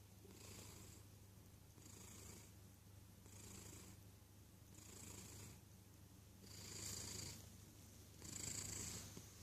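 A domestic cat snoring softly: six faint hissing breaths, about one every second and a half, over a steady low hum.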